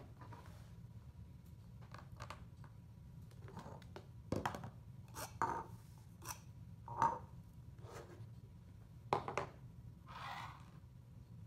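Clear plastic cups and small plastic toys being picked up and set down on a tabletop: a series of separate light knocks and clicks, then a soft rustle near the end.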